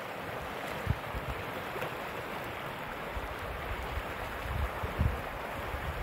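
River water rushing steadily through a riffle. A few low thumps on the microphone, the loudest about a second in and near the end.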